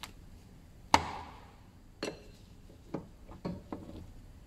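Metal spanner clinking and knocking against the oil hose fittings under the engine: one sharp clink with a ringing tail about a second in, then a few lighter knocks.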